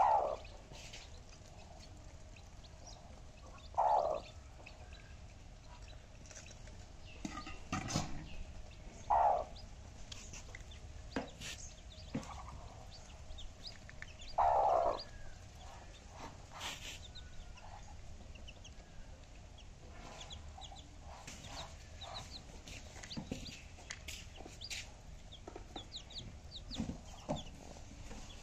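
Baby chicks peeping in short, high cheeps throughout. Four louder, lower chicken calls come a few seconds apart in the first half, and there is a single knock about eight seconds in.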